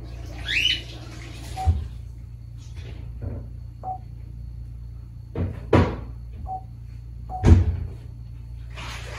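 An African grey parrot gives a short whistle with quick up-and-down pitch glides, followed by a scattering of sharp knocks and clicks, the loudest about three-quarters of the way through.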